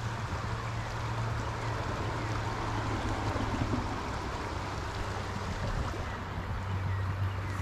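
Small stream's water running steadily, with a steady low hum underneath.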